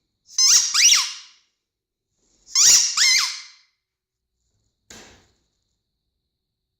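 Squeaker in a dog toy ball squeezed twice in quick succession, then twice again, each giving a shrill squeak that glides in pitch. A faint short sound follows about five seconds in.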